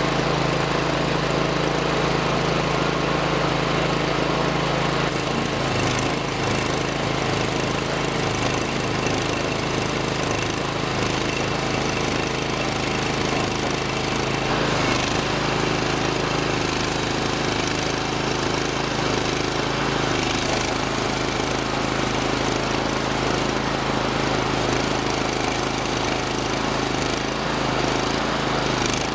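Portable band sawmill's gasoline engine running steadily under load as the band blade cuts through a log.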